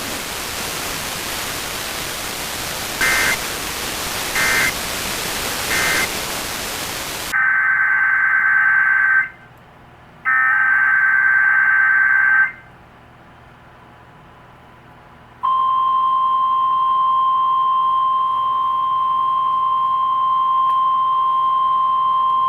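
Emergency Alert System audio off a weather radio feed. First there is a steady static hiss broken by three short data chirps (the SAME end-of-message bursts). Then, on a clean feed, come two longer SAME header data bursts, a short gap, and a steady 1050 Hz warning alarm tone that starts about 15 seconds in and holds.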